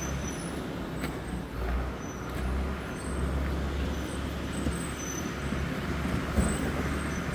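Caterpillar D5 bulldozer's diesel engine running steadily, a low, even rumble.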